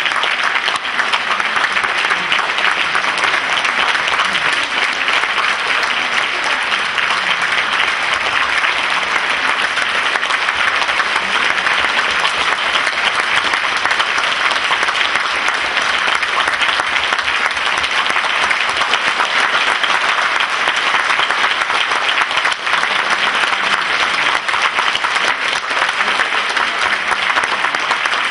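Concert audience applauding steadily, a dense, even clapping with no break.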